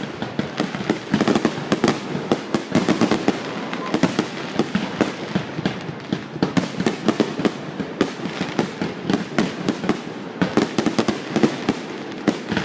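Fireworks finale: a dense, continuous barrage of bangs and crackling shell bursts, many per second, without a break.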